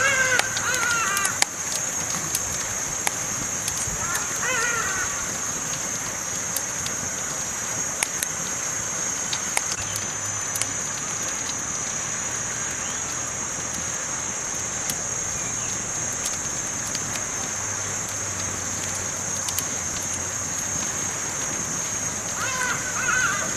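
Campfire crackling: sharp pops and snaps scattered over a steady high hiss. A bird calls briefly near the start, again about four seconds in, and near the end.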